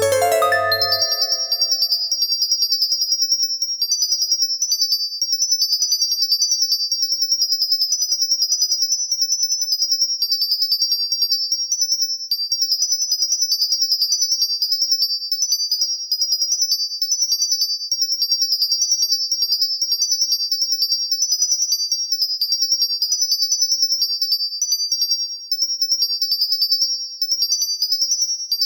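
Music: a fast, unbroken stream of high, tinkling synthesized notes running up and down in quick patterns. A low chord dies away in the first second.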